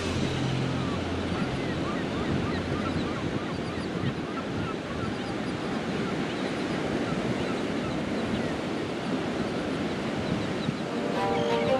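Breaking ocean surf and wind noise, with a flock of black skimmers and gulls giving many short calls throughout.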